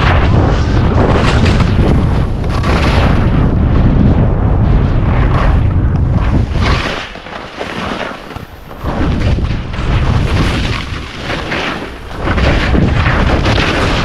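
Wind buffeting the camera's microphone as a skier descends at speed, mixed with the hiss and scrape of skis cutting through snow on each turn. The rush eases twice, about seven seconds in and again near twelve seconds, then picks up again.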